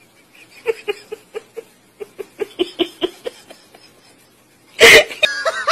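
A person's stifled giggling in short, rhythmic hiccup-like bursts. Near the end it breaks into a sudden loud burst of laughter.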